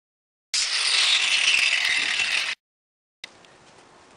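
Angle grinder cutting steel on a Model T rear spring assembly, a steady high grinding noise for about two seconds that starts and stops abruptly. Faint background noise follows near the end.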